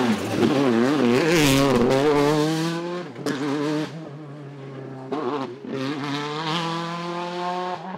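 Škoda Fabia WRC rally car's turbocharged four-cylinder engine working the throttle through a corner, revs wavering up and down, then accelerating hard away with the revs climbing. Sharp exhaust pops come about three seconds in and again around five seconds, as the car draws away and grows fainter.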